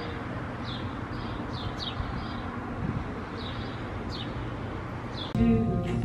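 Steady outdoor background noise with short, high, falling chirps repeating about once a second. Music starts near the end.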